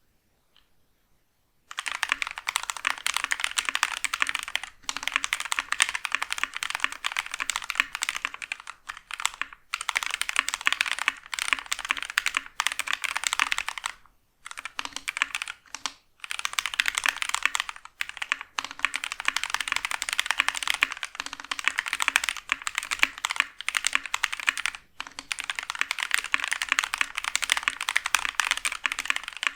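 Mechanical keyboard fitted with KTT Rose linear switches (Kailh housing, clear top, pink bottom) being typed on fast and continuously. The typing starts about two seconds in and stops briefly several times.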